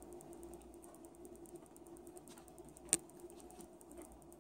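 Metal knife and fork cutting food in a plastic takeout container: faint scraping, with one sharp click of cutlery against the container about three seconds in, over a low room hum.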